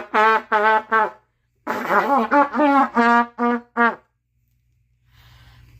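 Trumpet played by a beginner on her first day, lips tired from hours of playing: short, wavering, unsteady notes in two quick runs, with a brief break about a second in, stopping about four seconds in.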